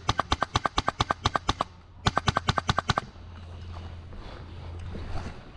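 HPA-powered airsoft rifle, an Mk18 with a Redline N7 engine, firing on full auto: a rapid stream of sharp snaps at about ten shots a second. The stream pauses briefly less than two seconds in, then a second short burst follows and stops about three seconds in.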